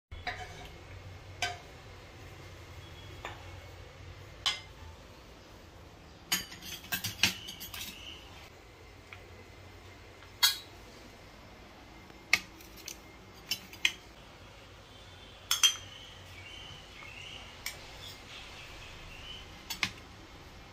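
Serving spoons and cutlery clinking against plates and bowls: about fifteen sharp, separate clinks at irregular intervals.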